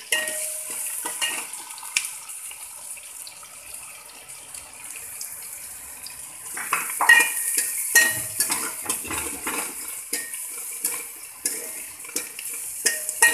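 Chopped onions sizzling in hot ghee in a metal kadai, while a metal spoon stirs and scrapes through them, clinking against the pan. The stirring and clinks get busier about seven seconds in.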